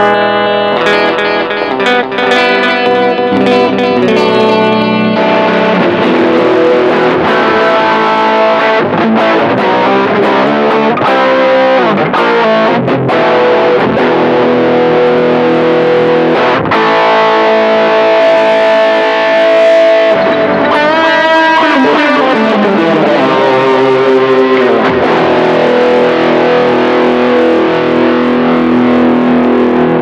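Electric guitar played through a TC Electronic Plethora X5 pedalboard, with a clean, compressed tone and delay at first. From about five seconds in it turns distorted, once the distortion pedal in the board's effects loop is switched on.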